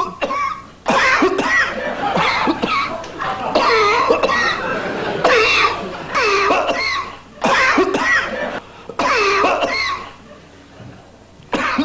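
A person coughing over and over in loud, voiced bouts about every one to two seconds, easing off briefly near the end.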